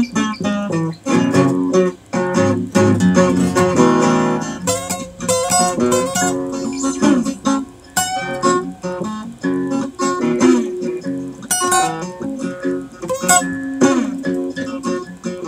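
Acoustic guitar playing an instrumental, quick runs of picked single notes over ringing chords.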